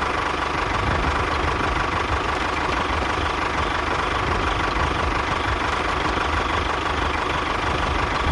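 A small motor running steadily with a constant whine and a fast low chugging.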